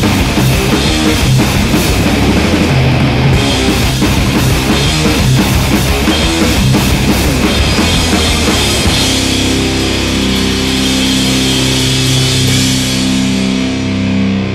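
Rock music with a drum kit and guitar. About nine seconds in the drumming stops and held chords ring on.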